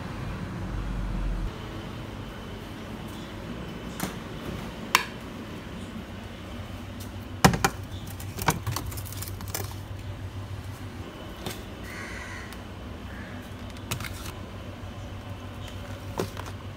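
Scattered clicks and knocks of a stainless steel salad bowl and a clear plastic salad container being handled and set on refrigerator shelves, the loudest knock about halfway through, over a steady low hum.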